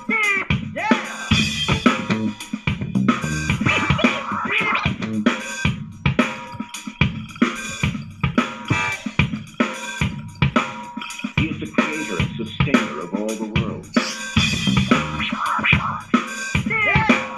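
Music with a beat of drums and turntable-style scratch sweeps played through an AWEI Y371 Bluetooth party speaker, picked up by a microphone in the room.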